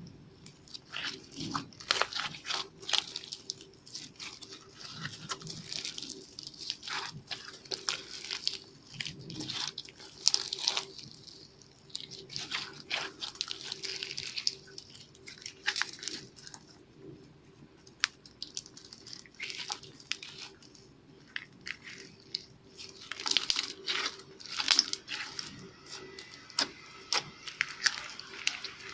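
Slime being kneaded and stretched by hand: irregular sticky crackles, pops and squelches, thickest in clusters about two, ten and twenty-four seconds in.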